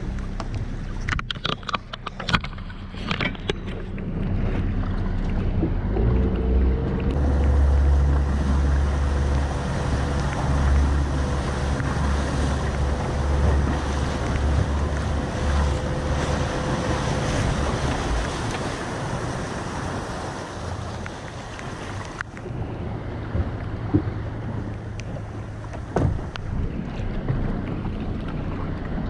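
Small boat's outboard motor running steadily, with wind buffeting the microphone for several seconds in the middle and a few sharp clicks in the first seconds.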